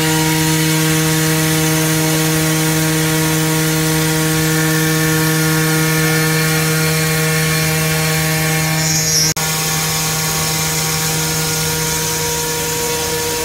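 A CNC glass working center's spindle grinding the edge of a glass panel under coolant spray: a steady, even hum over a wet grinding hiss. The sound breaks off for an instant about nine seconds in.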